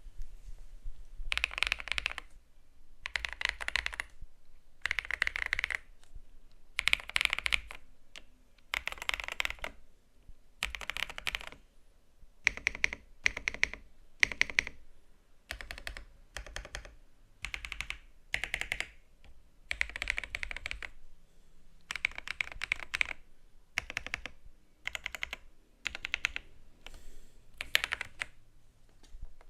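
Typing on a computer keyboard: rapid clusters of key clicks in bursts of about a second, with brief pauses between them.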